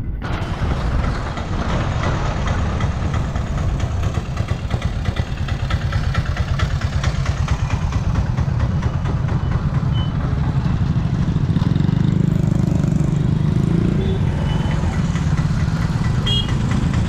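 Heavy road traffic in a jam: a loaded goods truck's diesel engine running close by, with other vehicle engines, a steady loud rumble that swells for a few seconds near the end. A few short high beeps come just before it ends.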